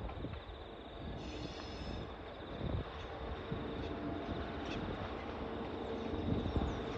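Diesel locomotives of an approaching freight train running: a low rumble with steady engine tones, growing a little louder towards the end.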